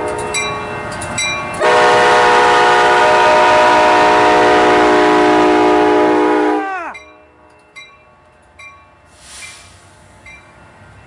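Amtrak cab car's multi-chime air horn sounding one long blast of about five seconds, a loud steady chord that sags in pitch as the air cuts off. A bell dings about once every second before and after the blast.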